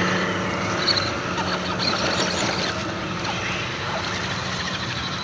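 Radio-controlled off-road car running, its electric motor and gears making a steady whine over a noisy rustle.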